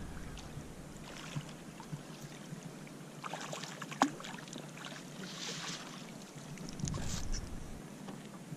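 Faint water splashing as a crappie is scooped into a landing net at the side of a boat, with a sharp click about four seconds in and a short burst of louder handling noise near the end.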